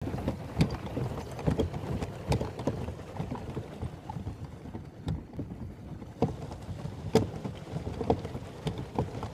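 Water splashing and lapping against the hull of a pedal boat under way, in many small irregular splashes.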